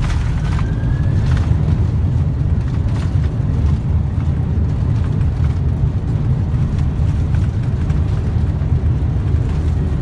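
Boeing 747-400 on its landing rollout heard from the flight deck: a loud, steady low rumble of the wheels on the runway and the engines as the jet decelerates after touchdown.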